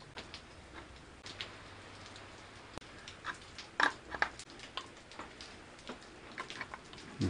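Faint, scattered clicks and metal taps of motorcycle mirrors being screwed into their handlebar mounts and snugged with a wrench, with a few louder knocks about four seconds in.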